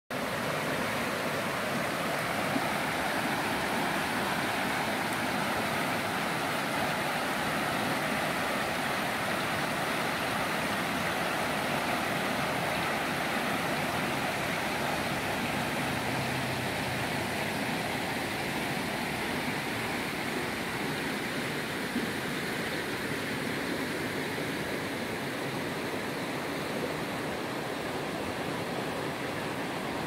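Shallow rocky river rushing steadily over stones and boulders.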